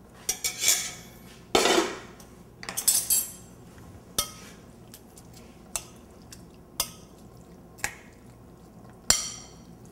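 A stainless steel pot and a metal spoon clattering against serving bowls as risotto is dished out: a quick cluster of clanks and scrapes in the first three seconds, then single sharp taps about once a second, with a loud ringing clink near the end.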